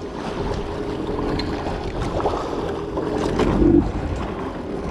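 Small fishing boat at sea: a steady engine hum under wind on the microphone and waves against the hull, with a couple of light knocks about two and three seconds in.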